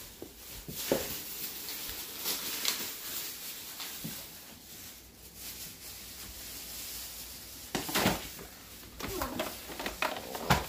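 Light rustling and scattered soft knocks of moving around a small room: footsteps, handling of a plastic toy and the brushing of curtains, with a louder rustle about eight seconds in.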